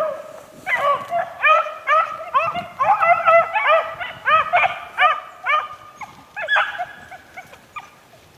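A pack of beagles giving tongue while running a rabbit's scent trail: short, overlapping baying yelps from several hounds, several a second, fading away near the end.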